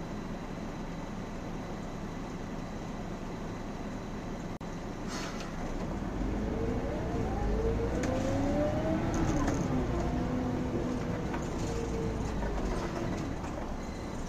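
Mercedes O405N city bus's diesel engine idling at a stop, heard from the driver's cab. About six seconds in it pulls away: the engine gets louder and its pitch rises as the bus accelerates, then drops back later as it shifts gear.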